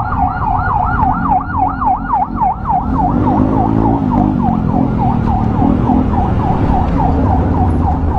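Electronic emergency siren in a fast yelp, its pitch sweeping up and down about five times a second, over a steady low engine and road rumble.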